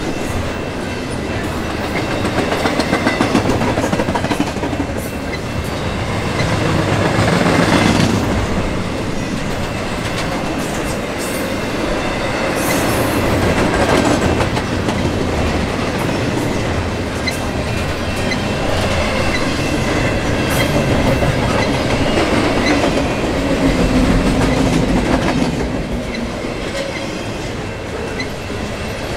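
Double-stack intermodal freight train rolling past close by, its cars' steel wheels rumbling steadily with repeated clicks over the rails.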